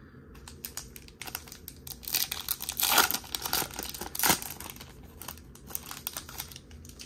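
Wrapper of a Topps baseball card pack crinkling and tearing as it is peeled open by hand. It is a run of irregular crackles, loudest in the middle.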